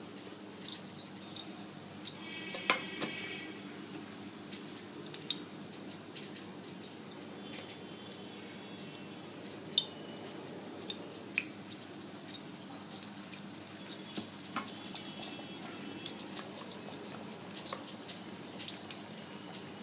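Battered potato slices (aloo pakoras) frying in hot oil in a wok: a low, steady sizzle and bubbling. Scattered sharp clinks and taps of utensils are on top, the loudest about three seconds in.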